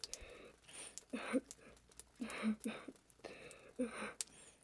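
A person crying: heavy, shaky breaths with short voiced sobs, coming roughly once a second.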